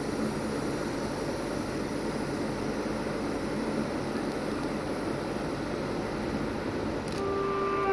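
Steady rumbling noise of rail traffic at a station. Near the end a sudden change, then an electric locomotive's horn starts a steady blast of several tones together.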